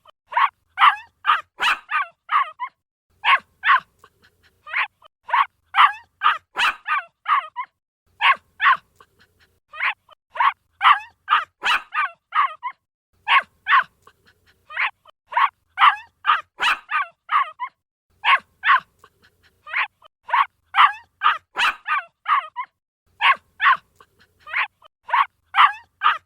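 A puppy yipping and barking in quick runs of short, high yips, each run lasting a second or two with brief pauses between.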